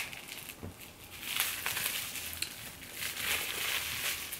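Paper rustling and crinkling as a small wrapped gift is opened by hand, in two spells of a second or so, with a few small clicks.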